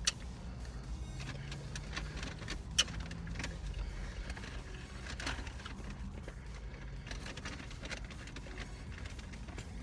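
Steady low rumble of a car idling, heard inside the cabin, with a few sharp clicks or taps, the loudest about three seconds in.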